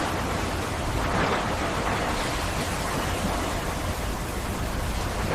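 Pressure washer jet spraying water against a ship's hull: a steady, dense hiss of spray with a low rumble underneath.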